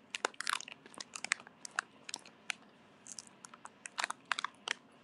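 Crisp rice crackers (khao taen) being bitten and chewed: a run of irregular sharp crunches.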